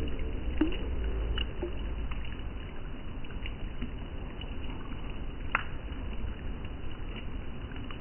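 River or stream water flowing steadily, with a few brief sharp ticks over it, the clearest about five and a half seconds in.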